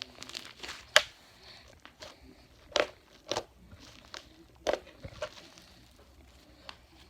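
Fluffy slime with beads in it being squeezed and pressed by hand, giving a run of sharp pops and crackles, about five of them loud.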